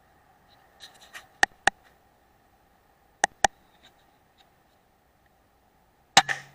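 Two pairs of sharp clicks, each pair a quarter second apart, then a loud sudden knock near the end, over a faint steady high whine.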